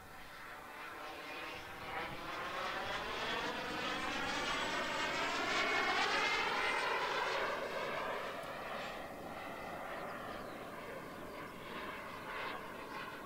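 Turbine engine of a thrust-vectored RC model jet whining as the jet flies past. It grows louder to a peak about halfway through, and its tone sweeps as it passes, then it fades a little.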